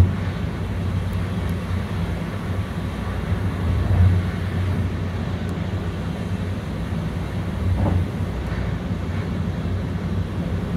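InterCity passenger coach running along the line, heard from inside: a steady rumble of wheels on rail with a low hum. It swells briefly about four seconds in and again near eight seconds.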